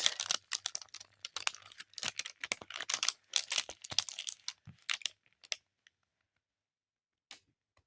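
Diamond painting canvas being handled, crinkling and crackling irregularly with many small clicks; it stops about five and a half seconds in, with one faint click near the end.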